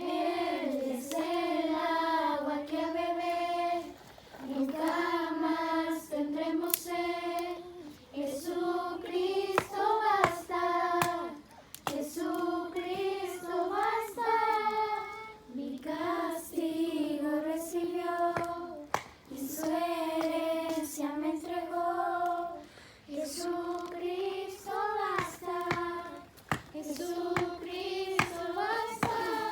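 High voices singing a Spanish worship song in phrases of about two seconds with short breaks, with scattered sharp clicks.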